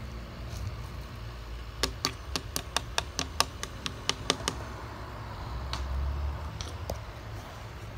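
Rapid light tapping: about a dozen quick taps in under three seconds, about four or five a second, then a few single taps, over a low steady hum.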